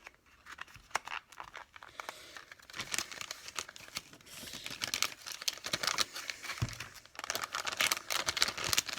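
Plastic packaging of soft plastic fishing baits crinkling as it is handled. A few light clicks come first, then about two and a half seconds in the crinkling turns steady and dense, with a brief pause near the end.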